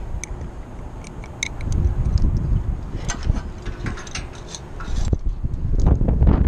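Wind buffeting the microphone, rising and falling, with scattered light metallic clicks and clinks from a hand wrench and steel antenna-mount hardware.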